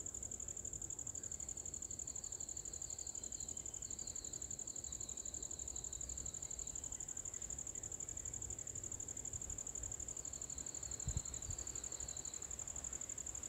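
Steady, high-pitched insect chorus with a fast pulse. A second, lower trill starts and stops twice, and there is a single low thump near the end.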